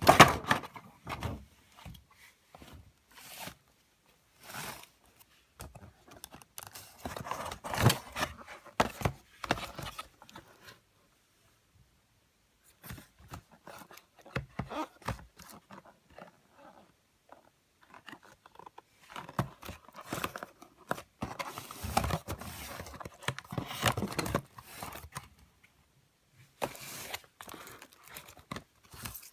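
Handling noise from fireworks packaging: plastic wrapping and cardboard boxes crinkling, rustling and scraping as they are picked up and moved about, in irregular bursts with short pauses.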